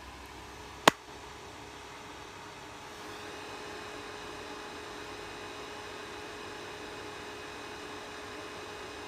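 Elegoo Mars resin 3D printer running with a steady electric hum and faint whine. A single sharp click about a second in, and the hum steps up slightly about three seconds in.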